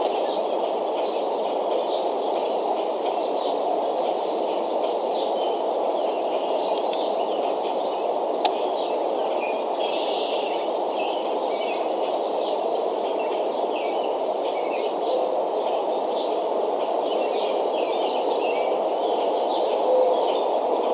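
Many short bird chirps, scattered throughout, over a steady low rushing background noise, with a faint low coo near the end.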